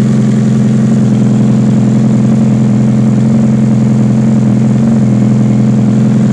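Loud, steady motor hum with an unchanging low drone.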